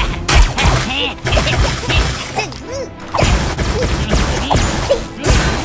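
Cartoon action soundtrack: a rapid run of crash and impact effects mixed with short, sliding squeaky cries from a cartoon character, over music.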